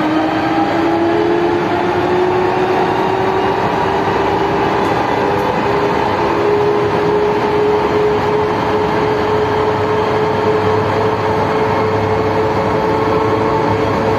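Siemens VAL 208 NG rubber-tyred automated metro train accelerating, heard from on board: the traction motors' whine rises slowly and steadily in pitch over the continuous rolling noise of the tyres.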